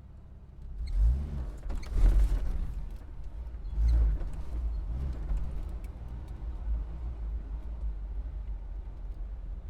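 Car engine moving off from a stop: a low idle, then, about a second in, several revving surges that rise and fall in pitch as it pulls away, settling into a steady run.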